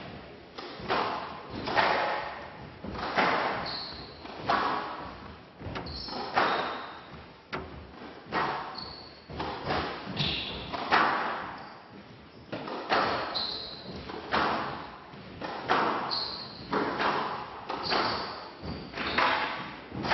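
A squash rally: the ball cracking off rackets and the court walls about once every second or so, each hit ringing on in the hall, with short high squeaks from court shoes between the shots.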